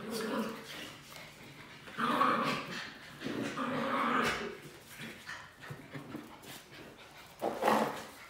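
Dogs growling and yapping as they play-fight: a burst about two seconds in, a longer one around three to four seconds, and a short one near the end, with scrabbling in between.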